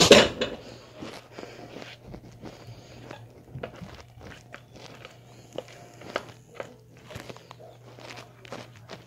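A spoon or spatula stirring thick brownie batter in a bowl, with a loud knock at the start and then irregular scrapes and clicks against the bowl. A faint steady low hum runs underneath.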